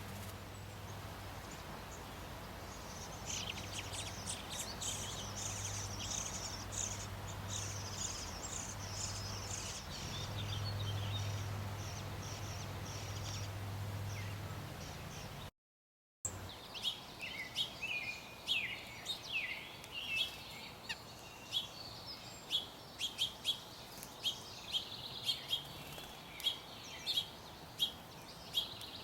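Bluebirds chirping: quick high-pitched calls over a steady low hum, then, after a brief cut about halfway through, a run of sharper chirps repeated several times a second.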